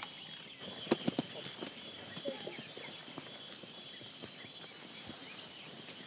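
Tropical rainforest ambience: a steady high hiss of insects with a few sharp clicks and short chirps about a second in.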